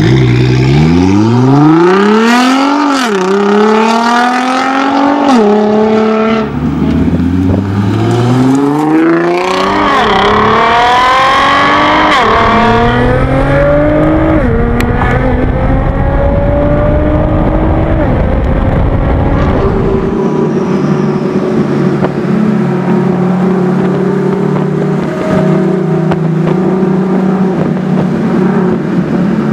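Nissan GT-R R35's twin-turbo V6 through an Armytrix valvetronic exhaust, accelerating hard through several upshifts, its note climbing and dropping back at each shift. A stretch of rushing wind and road noise follows, then from about 20 seconds in a steady low exhaust drone as the car cruises.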